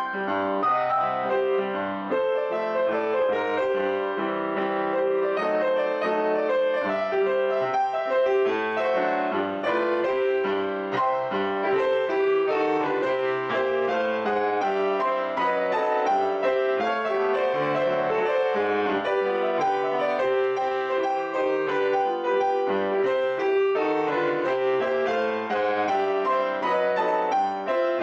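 Solo grand piano playing ragtime in a jazzed-up style: a steady stream of quick notes over a running bass, at an even level.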